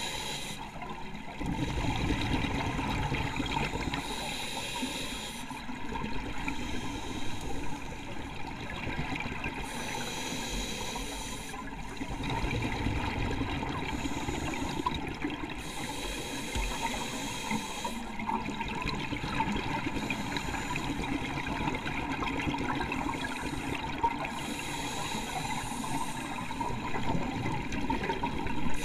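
Scuba diver breathing through a regulator underwater: a hiss on each breath in and a rush of exhaled bubbles on each breath out, in a slow repeating cycle.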